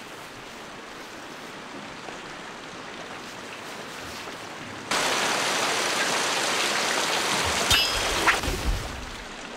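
Heavy rain comes in suddenly about halfway through after a faint hiss, and stops just before the end. Under the rain, a few seconds from the end, comes a sharp ringing metal clash of katana blades, followed by a few heavier thuds.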